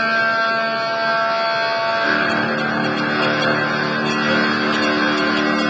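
Steady car cabin noise while driving at highway speed, with engine and road hum, and music with sustained notes playing over it.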